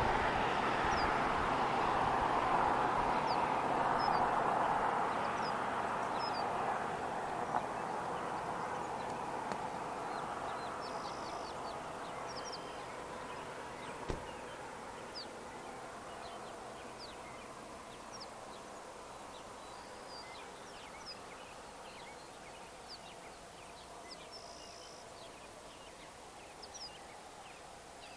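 Birds chirping in short, high calls throughout, over a steady rushing vehicle noise that fades away over the first twenty seconds.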